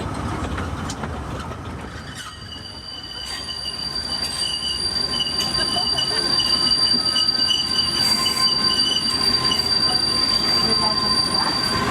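Kurobe Gorge Railway narrow-gauge train running with its steel wheels squealing on the rails. Two high, steady screech tones set in about two seconds in over the running rumble, getting louder, and stop just before the end.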